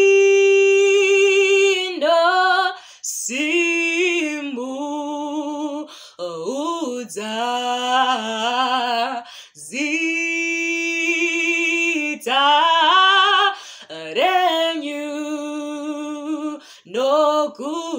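A woman singing a Shona worship song solo and unaccompanied, holding long steady notes and gliding through phrases, with short breaks for breath between them.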